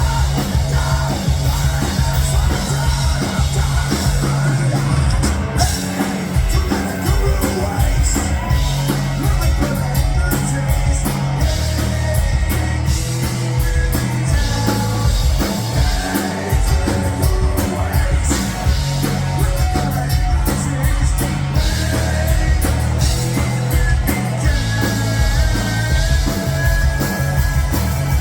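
Loud rock music with a drum kit and singing.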